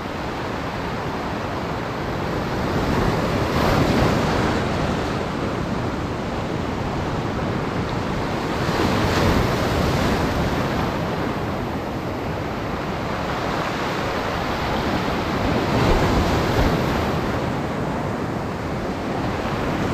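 Heavy surf breaking and washing on the shore, rising and falling in surges a few seconds apart.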